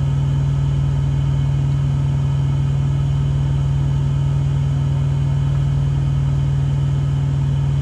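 A steady low hum, unchanging throughout, with fainter steady overtones above it.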